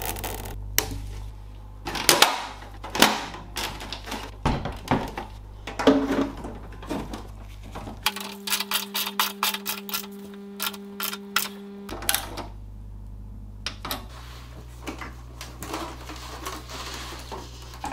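Clicks and knocks of hands reassembling a desktop PC: a cable tie being fitted on the wiring, a screwdriver driving the case's knurled thumbscrew, and the tower being handled on a table. In the middle comes a run of rapid, even clicks over a steady low hum.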